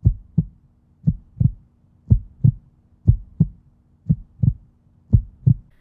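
Normal heart sounds of a healthy heart: the first and second heart sounds (S1 and S2) in steady 'lub-dub' pairs, about one beat a second, six beats in all, over a faint steady hum.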